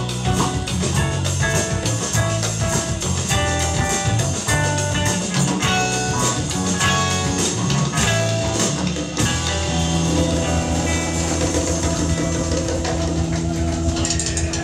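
Live band with hand drums, saxophone, electric guitar and drum kit playing busily. About nine seconds in, the drumming stops and the band holds one long sustained chord, which has the sound of a song's closing chord ringing out.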